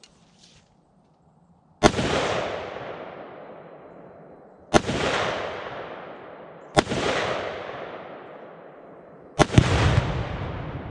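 Three rifle shots a few seconds apart, each echoing and fading over a couple of seconds. Then a fourth shot, followed a split second later by a heavier, deeper boom as the Tannerite-packed pumpkin detonates, its rumble dying away slowly.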